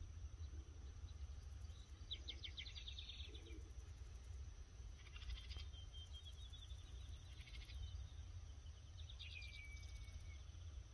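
Faint outdoor ambience: birds calling in short rapid trills about two, five, seven and nine seconds in, the last running into a brief whistle, over a low steady rumble.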